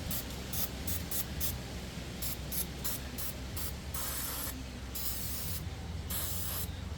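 Aerosol can of carburettor cleaner spraying onto a chainsaw to blast off gunk and sawdust. It gives a rapid series of short hissing puffs, then a few longer sprays of about half a second in the second half.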